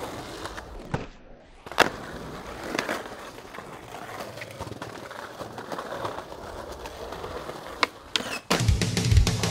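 Skateboard wheels rolling over pavement, broken by a few sharp clacks of the board against the ground, the loudest about two seconds in and another just before the end as the board pops into an ollie. Drum-kit music starts about a second before the end and is the loudest sound from then on.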